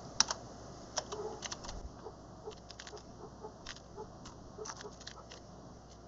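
Typing on a computer keyboard: light, irregular key clicks, a few a second.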